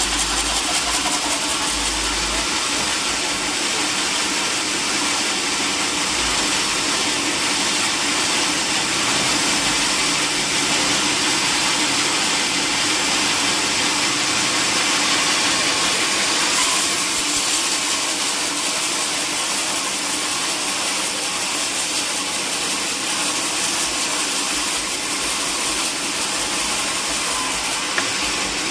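Sawmill machinery running steadily: a constant engine-driven drone with a loud hiss that shifts slightly about sixteen seconds in.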